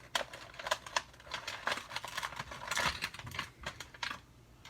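Hot Wheels blister pack being opened by hand: the stiff plastic bubble crackling and snapping in a rapid, irregular run of clicks, with a couple of short tearing noises partway through.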